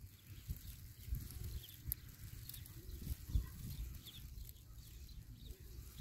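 Wind buffeting the microphone in uneven gusts, with a few faint bird chirps.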